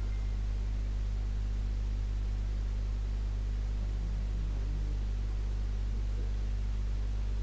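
Steady low electrical hum with a faint hiss over it, unchanging throughout.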